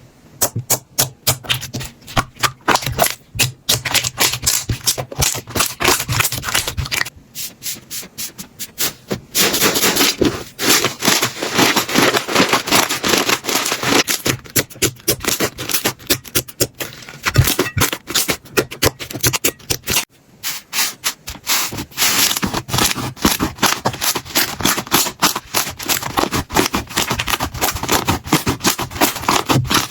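Slime being squeezed, pressed and stretched by hand, giving dense runs of sticky crackling, popping and clicking. The texture changes abruptly several times as one slime gives way to another.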